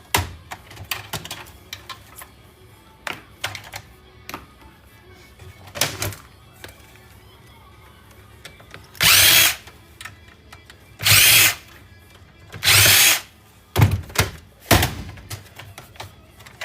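Cordless drill-driver run in three short bursts of about half a second each, backing screws out of a computer case. Light clicks and rattles of parts being handled run throughout, and two sharp knocks of metal parts come near the end.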